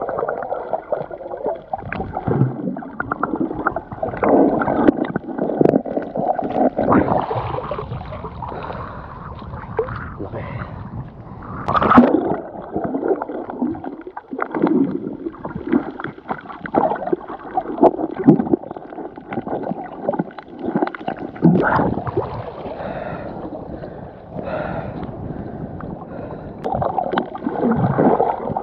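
Muffled underwater gurgling and sloshing of water around a submerged camera, rising and falling in irregular swells with short louder pulses, the loudest about twelve seconds in.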